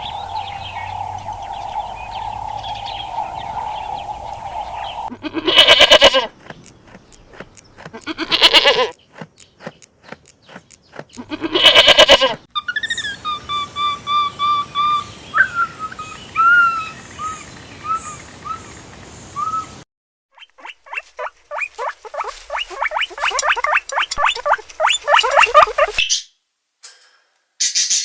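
Animal calls cut one after another: a steady high call, then three loud, brief cries about three seconds apart, then a stretch of short repeated chirps, and near the end a fast run of rapid repeated calls.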